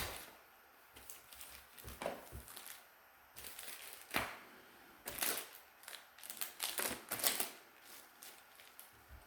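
Plastic packaging crinkling, with irregular clicks and taps as small tools are handled.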